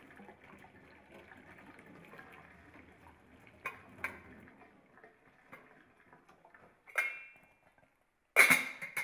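Cooking water draining from a pot of boiled potatoes, held back by the lid, into a stainless steel sink, with light clinks of the lid against the pot. About seven seconds in a metal pot or lid knocks once and rings briefly, and near the end comes a louder clatter of the pot and lid.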